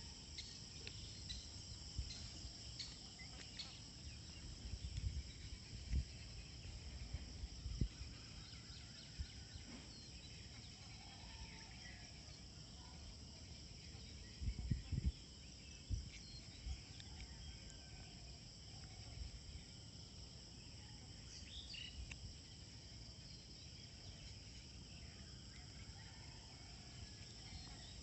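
Steady high-pitched insect drone with scattered short bird chirps, and a few soft low thumps.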